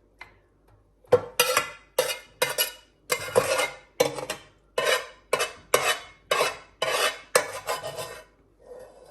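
A utensil scraping against a baking dish in quick repeated strokes, about two a second, spreading sauce over lasagna sheets. It starts about a second in and stops near the end.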